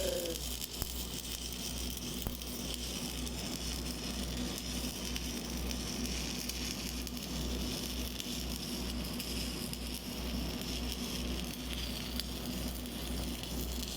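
Electric arc welding: a steady, even crackle and sizzle of the arc over a low hum, running without a break.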